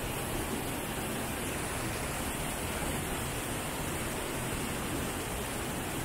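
The Rhine Falls: river water plunging over rock and churning in the basin below, a steady, unbroken rushing noise.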